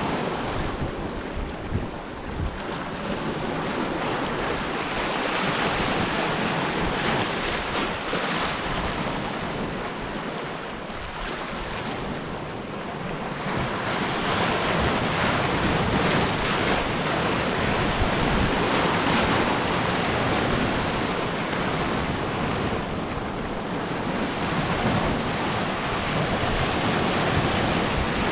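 Sea surf breaking and washing ashore in a strong wind, with wind buffeting the microphone in a low rumble. The roar swells and eases in long waves, quieter for a few seconds near the middle.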